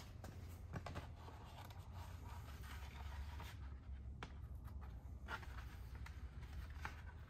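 Faint rubbing, light scrapes and small clicks of a plastic mountain-bike mudguard being handled and pressed against the suspension fork during a test fit, over a steady low hum.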